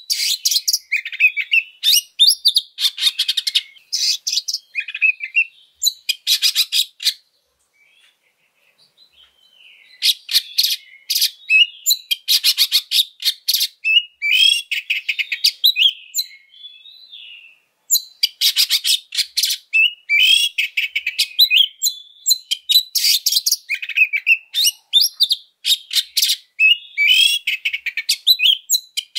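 Oriental magpie-robin (kacer) singing loudly: bursts of rapid, rough chattering trills mixed with short whistled notes, its song full of rough mimicked phrases. It pauses for a couple of seconds about seven seconds in and briefly again near the middle.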